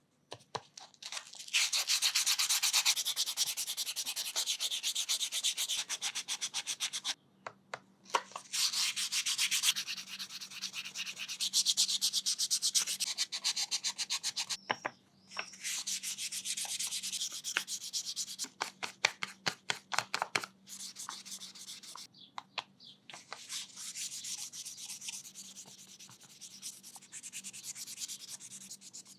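Sandpaper rubbed back and forth in quick strokes over a small wenge wood carving, with two brief pauses, about 7 and 15 seconds in.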